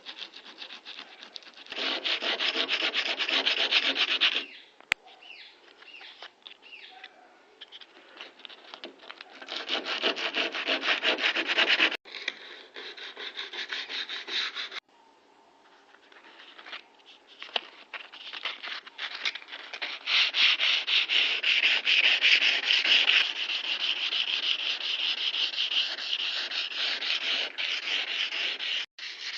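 Sanding on a Nissan 1400's body panel, a dry rasping rub in repeated quick strokes. It comes in spells of a few seconds with short pauses, and the longest spell runs through the second half.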